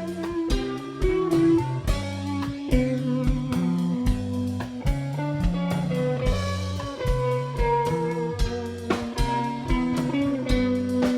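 Band playing an instrumental blues-rock passage: electric guitar notes over a steady drum kit beat.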